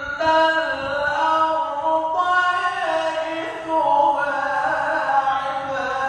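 A male qari reciting the Quran solo in the melodic tajwid style, holding long, ornamented notes that slide and step between pitches.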